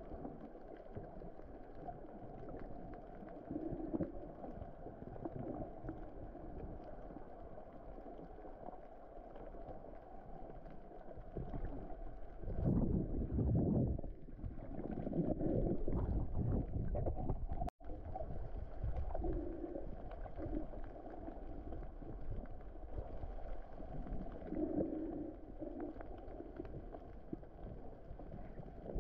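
Muffled underwater rush of moving water picked up by a submerged action camera, dull and low with no clear tones. It swells louder for a few seconds past the middle, then cuts out for an instant.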